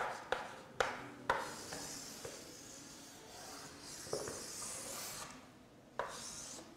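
Writing on a lecture-room board: a few sharp taps in the first second and a half, then several seconds of steady scratchy rubbing, with another tap near the end.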